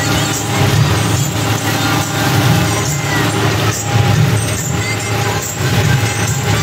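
John Deere 5045D's three-cylinder diesel engine running under load, pulling a Maschio Terminator that is shredding dry sugarcane trash, with the churn of the implement mixed in. It is a loud, steady drone whose low hum swells and eases every second or two.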